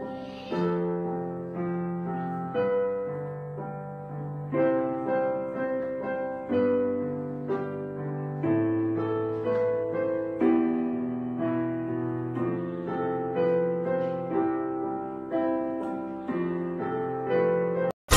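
Background piano music: a gentle tune of held notes and chords, each struck and fading away, about one a second, cutting out briefly just before the end.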